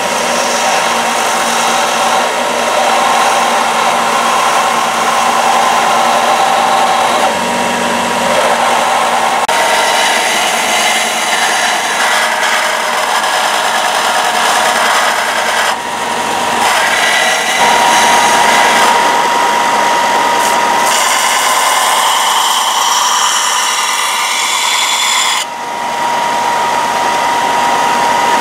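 Belt sander running with a high-carbon steel knife blade pressed against its abrasive belt, giving a steady grinding hiss over a thin motor whine. The texture of the grinding shifts a few times between passes, with two short dips in loudness.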